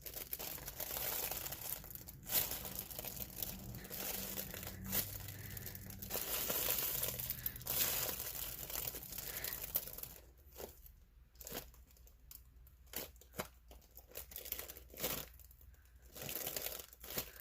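Homemade cake roll squishy handled and squeezed by hand, crinkling and rustling. Steady handling for the first half, then scattered short rustles and light taps.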